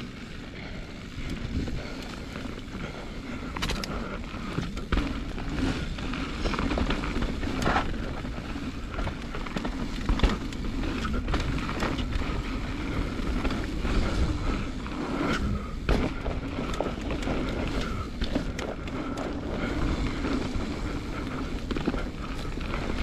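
Transition Patrol full-suspension mountain bike descending a rough dirt trail: tyres rolling over dirt and rock, with frequent clicks and rattles from the bike over bumps and a steady low rumble.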